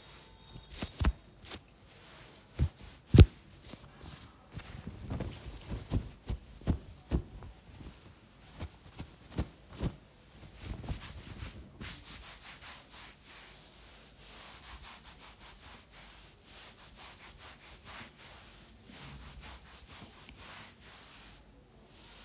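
Hands massaging a head: a run of sharp pats on the scalp over the first ten seconds, then fast, continuous rubbing and scratching of fingers through the hair.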